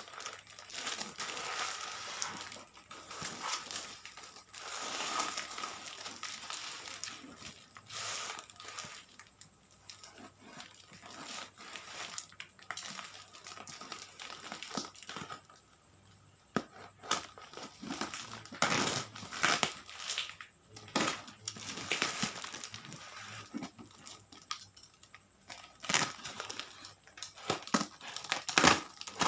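Packaging being handled and unwrapped, with crinkling, rustling and tearing. Irregular sharp clicks and knocks run through it and grow louder near the end.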